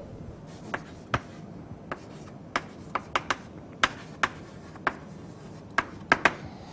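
Chalk writing on a blackboard: about a dozen sharp, irregular taps and short scrapes as letters are written.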